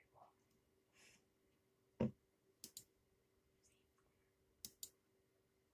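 Near-silent room with a faint steady hum and a few sharp clicks: one louder click about two seconds in, then two quick pairs of clicks.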